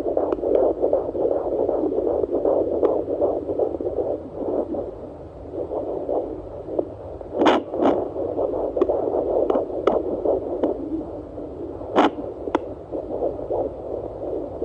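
Fetal Doppler speaker playing a 22-week baby's heartbeat as a fast, galloping whoosh, mixed with the mother's own slower heartbeat. It is broken by a few sharp scratchy clicks, a couple just after the middle and one about twelve seconds in.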